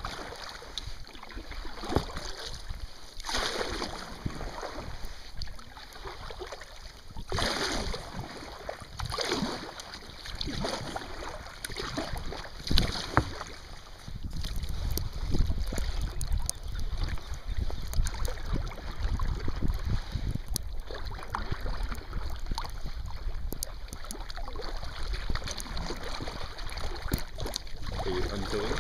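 Kayak paddle strokes splashing every couple of seconds, with water slapping the hull in choppy water and wind buffeting the microphone. The wind rumble grows stronger about halfway through.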